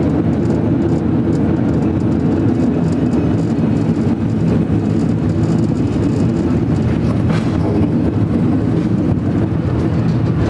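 San Francisco cable car on the Powell-Hyde line running along its track: a steady, loud rumble and rattle of the car on its rails with a low hum under it, and a brief sharp clank about seven seconds in.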